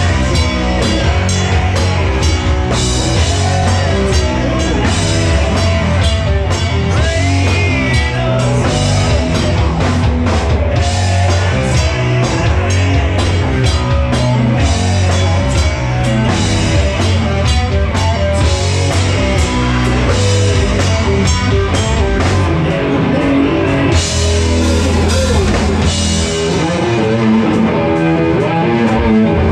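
Live rock band playing loud electric guitar over a drum kit, steady throughout.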